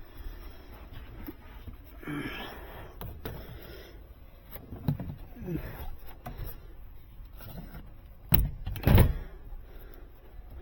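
Handling and work noises while feeding thermostat wire: scattered rustling and light knocks, with two heavy thumps a little over eight and nine seconds in.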